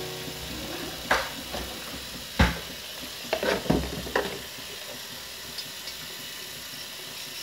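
Tap water running steadily into a steel bowl in a stainless-steel kitchen sink. Several knocks and clatters of things handled and set down on the steel drainboard come about a second in, once loudest about two and a half seconds in, and in a quick cluster around three to four seconds in.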